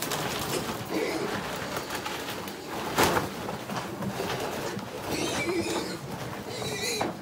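A pen of black piglets grunting and calling as they shuffle about, with short calls a little after the middle and again near the end. A single sharp knock about three seconds in.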